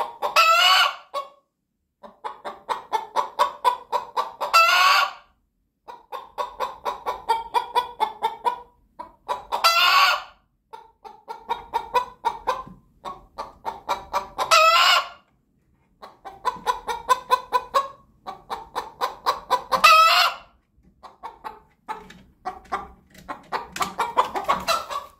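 White Leghorn hen cackling: runs of quick clucks grow louder and end in a long, loud squawk, about five times over, every four to five seconds. This is the hen's egg song, the cackle given around laying.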